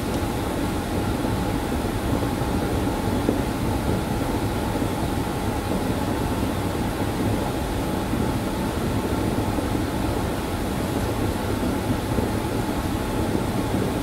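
Steady mechanical hum and rushing noise, even in level throughout, with a faint steady tone running through it.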